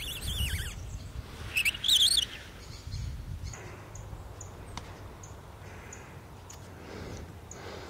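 Birds chirping in quick gliding notes, loudest about two seconds in. After that, faint short high chirps repeat roughly twice a second.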